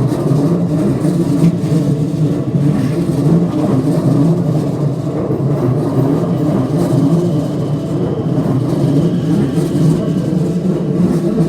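A vehicle running steadily close by: a loud, continuous low-pitched noise, with a faint thin high tone joining about seven seconds in.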